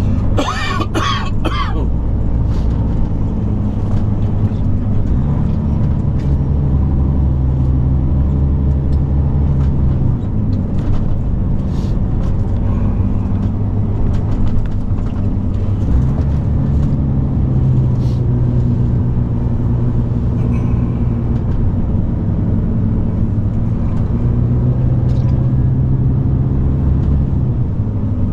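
Mercedes-Benz Actros SLT heavy-haul truck's inline-six diesel engine running, heard from inside the cab while driving slowly over a gravel site road. The low engine note rises and falls a few times as the truck pulls and eases off, with light clicks and rattles from the cab.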